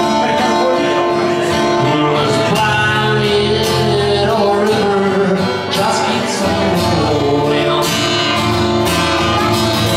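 Acoustic guitar strummed in a steady rhythm, chords ringing on.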